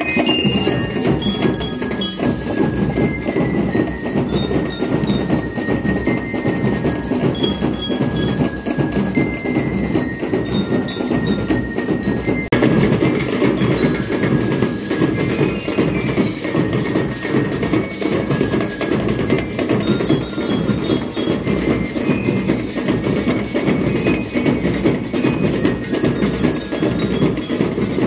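Marching band of bell lyres, drums and metal cylinder shakers playing: short ringing bell lyre notes over fast, dense drumming and shaking. The sound changes abruptly about twelve seconds in, at a cut in the recording.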